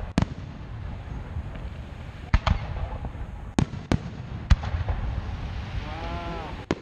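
Aerial fireworks shells bursting overhead: about half a dozen sharp booms at uneven intervals, over a steady low rumble.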